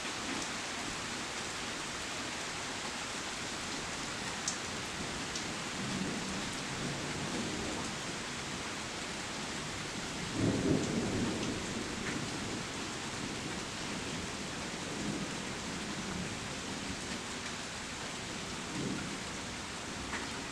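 Steady rain hissing, with several rolls of thunder rumbling low; the loudest rumble comes about halfway through.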